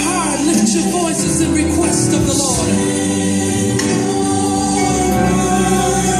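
Recorded gospel song playing over a church sound system: choir singing with melismatic vocal runs and a long held note in the middle.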